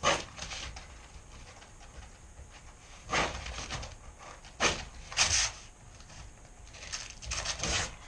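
Utility knife scoring a peel-and-stick vinyl plank along a metal straightedge in several short scraping strokes. Near the end the plank is bent up along the score line.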